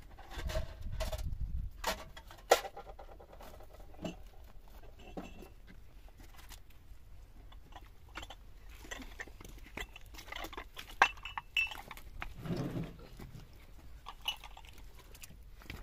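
Wooden sticks of a cord-lashed stick door clattering and knocking as it is handled, lifted and carried, in scattered clicks with two sharp knocks, one about two and a half seconds in and one about eleven seconds in.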